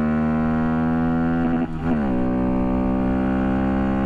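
Honda Monkey's single-cylinder four-stroke engine, fitted with an upgraded cam and ECU flash, running under way at steady revs. About two seconds in the sound briefly drops and the pitch falls quickly to a lower steady note, as in an upshift.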